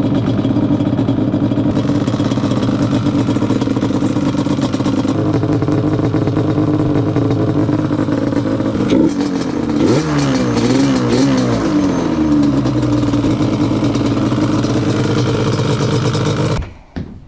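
Vehicle engine running loudly and steadily, then revved up and down several times about two thirds of the way through.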